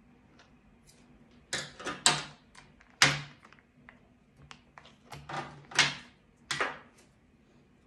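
Slicker brush raked through a cocker spaniel's long coat in about six quick, scratchy strokes, the loudest about two and three seconds in.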